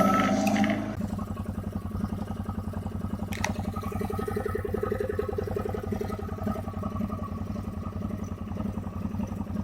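Quad bike (ATV) engine idling with a steady, fast, even putter. It is louder until about a second in, then settles.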